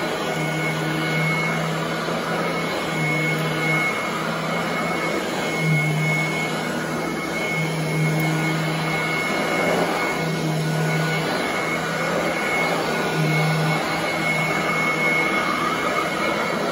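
Royal commercial upright vacuum running on carpet as it is pushed back and forth: a steady motor whine, with a low hum that comes and goes every second or two.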